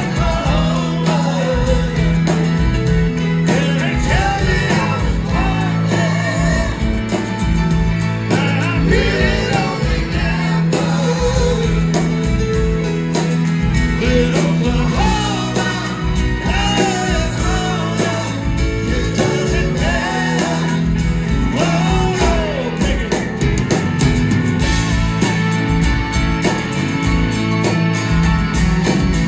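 Live rock band playing a country-tinged song: lead singing over strummed acoustic guitars and electric guitar, with a steady beat.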